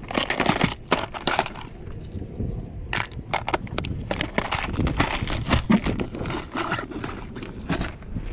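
Irregular crunching and rustling footsteps, several sharp crackles a second.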